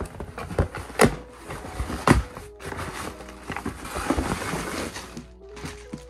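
Cardboard shipping box being torn open by hand: packing tape ripped and flaps pulled apart, with the two loudest sharp rips about one and two seconds in, then plastic packing rustling as an item is lifted out. Soft background music underneath.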